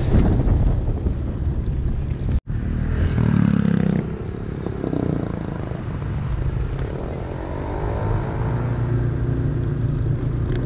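Motor vehicle engines running and passing on a flooded street, with a deeper engine swell about three seconds in and a sliding engine tone later on. The sound drops out for an instant about two and a half seconds in.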